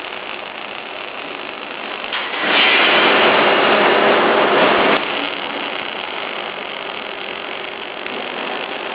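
Steady running noise from a Fanuc welding robot's machinery. A much louder, rough, crackling noise starts about two and a half seconds in and cuts off suddenly about two and a half seconds later.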